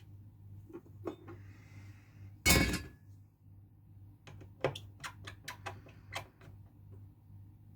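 Workbench handling noises: one loud clunk about two and a half seconds in, then a quick run of light clicks and taps, over a faint steady hum.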